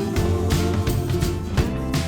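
Background music: upbeat guitar-led track with a steady beat.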